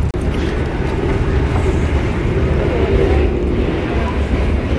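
Steady low rumble of a moving passenger train, heard from inside the carriage. The sound cuts out briefly just after the start.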